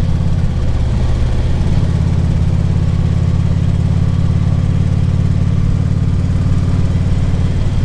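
Harley-Davidson Ultra Classic Limited's V-twin engine running steadily while riding, with a brief change in pitch about a second in.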